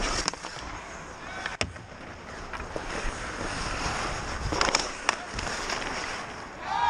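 Ice skates carving and scraping on the rink with wind rushing over a helmet-mounted microphone, broken by a few sharp clacks of hockey sticks and puck, about a second and a half in and twice more near the five-second mark.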